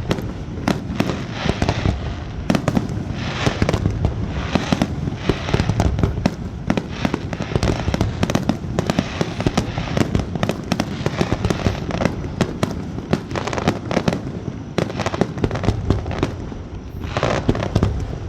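Fireworks barrage: many shells bursting in rapid succession, deep booms overlapping with sharp cracks. There is a short easing about 17 seconds in.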